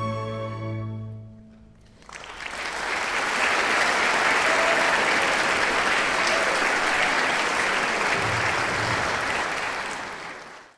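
A string orchestra's final held chord fades away, and about two seconds in an audience breaks into steady applause, which stops abruptly near the end.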